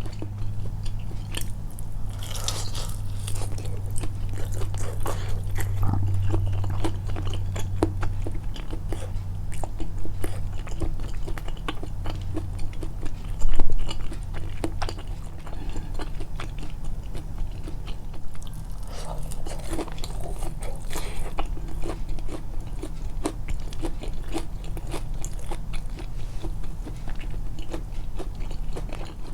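Close-miked biting and chewing of hot fried chicken, with soft crunches and wet mouth clicks throughout. The crunch is light because the chicken came out under-fried. About halfway through there is one much louder thud.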